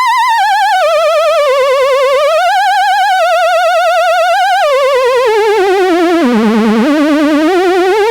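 Electronic opera singer (model 23) sounding one synthesized, voice-like tone with a fast, even vibrato. It slides between held notes, dropping gradually to a low note about two-thirds of the way through and then rising again.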